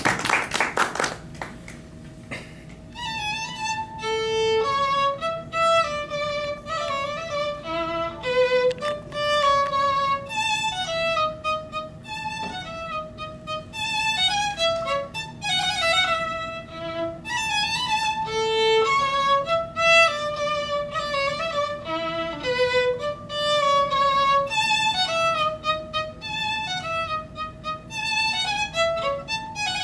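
Solo violin bowed in a melody of short, distinct notes, beginning a couple of seconds in as the tail of applause dies away. A steady held tone sits underneath the melody throughout.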